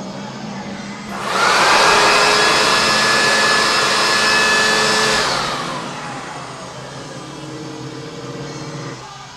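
Corded electric leaf blower switched on about a second in: its motor whine rises quickly, then holds steady over a loud rush of air. About five seconds in it is switched off and winds down.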